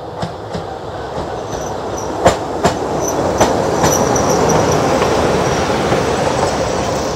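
An LDH diesel-hydraulic locomotive passes close by, running light. The engine and wheel rumble grows louder as it draws level. A few sharp clacks of its wheels come over the rail joints between about two and four seconds in.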